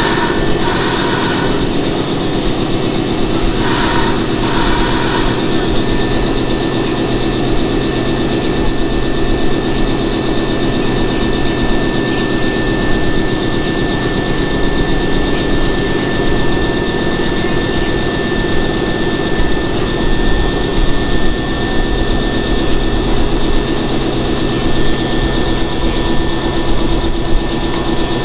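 Nankai 6000 series electric train standing with its doors open, its C-1000 air compressor running with a loud, steady mechanical noise and a steady high whine over it. Two brief higher-pitched sounds come in the first five seconds.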